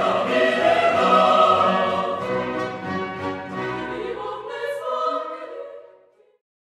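Choral music with orchestral accompaniment, sustained voices and instruments, fading out about six seconds in.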